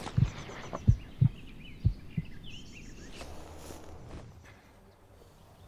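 Heartbeat sound effect: deep low thuds in lub-dub pairs about once a second, stopping a little over two seconds in. Faint outdoor ambience with a few bird chirps follows.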